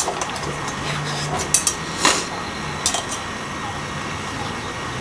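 Rubber band stretched through a cup, a homemade string instrument, plucked a few times: three short snaps about a second and a half in, two seconds in and three seconds in, with a faint low drone between them.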